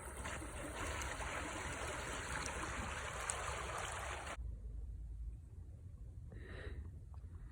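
A stream's water running steadily, cutting off abruptly a little over four seconds in; a quieter, near-still stretch with one faint brief sound follows.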